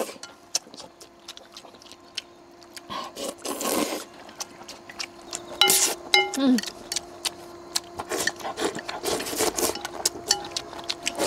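Chopsticks clicking and scraping against bowls while eating and stirring food, many small sharp clicks, with a brief murmured voice about halfway through.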